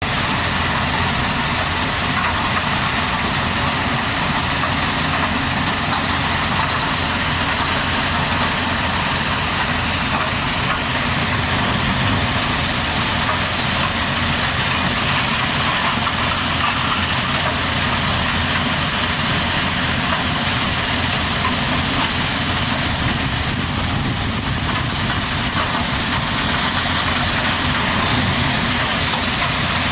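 Heavy construction machine's engine running steadily at an even level, with no sudden knocks or changes in speed.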